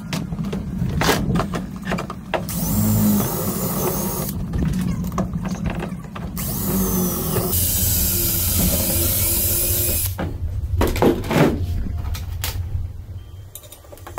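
Cordless drill boring into aluminum framing angle in two runs, the second about four seconds long, with sharp knocks of metal being handled around them.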